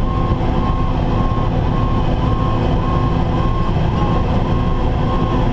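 Fire engine running on the road, heard from inside the cab: a steady engine and road rumble, with the truck's siren rising and falling rapidly, about twice a second, in a fast yelp over it.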